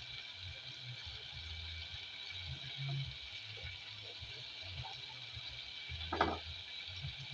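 Faint kitchen cooking noises from a pot on the stove: a steady hiss with low, intermittent rattling, and one louder clink or scrape about six seconds in.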